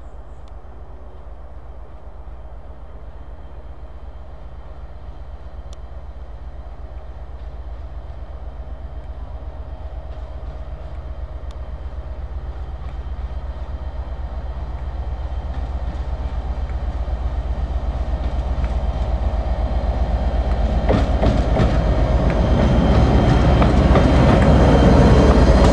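Class 57 diesel-electric locomotive with its EMD two-stroke engine running as it hauls coaches towards the listener, growing steadily louder as it nears. For the last few seconds it is close by, and wheels clatter over the rail joints.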